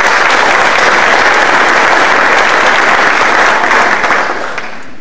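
Audience applauding, louder than the speech around it, then fading out about four seconds in.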